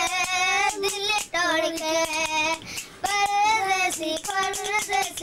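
A child singing a song in a high voice, in phrases of held notes with a wavering pitch. Short sharp clicks fall in the gaps between phrases.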